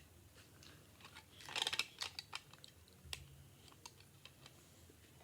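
Plastic LEGO bricks clicking as they are handled and snapped together: scattered faint clicks, with a quick run of several clicks about a second and a half in and a single sharper click around three seconds.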